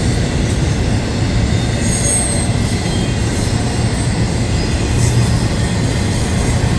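Freight cars of a long manifest train rolling past, a steady rumble of steel wheels on rail, with a brief high wheel squeal about two seconds in.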